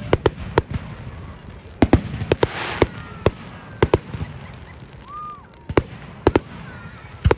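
Fireworks going off: a rapid, irregular string of sharp bangs, about fourteen in all, some coming in quick pairs.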